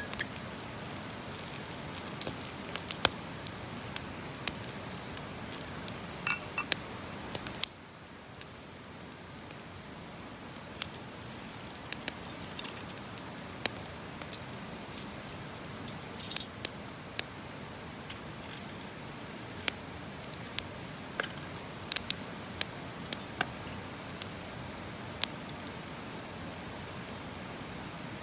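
Wood campfire crackling, with irregular sharp pops and snaps over a steady hiss. The hiss dips a little about eight seconds in.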